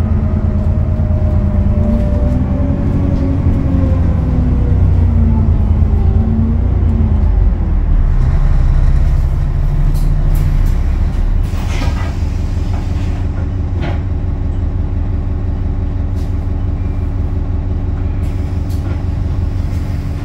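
Diesel engine and automatic transmission of a London bus heard from inside the saloon. The pitch glides and falls over the first several seconds, then it settles into a steady low drone, with a few sharp clicks about twelve and fourteen seconds in.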